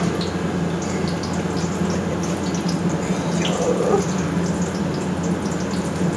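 Batter-coated balls deep-frying in a large wok of hot oil, sizzling and crackling steadily, over a steady low hum.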